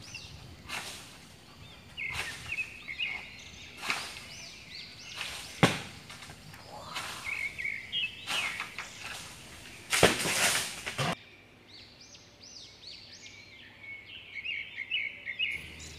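Coconuts dropping from a tall coconut palm during harvest, with sharp rustling thumps as they land, the loudest about six and ten seconds in, while birds chirp repeatedly.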